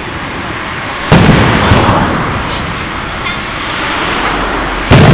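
Aerial fireworks shells bursting: two sharp booms, one about a second in and one near the end, each followed by a long rumbling echo.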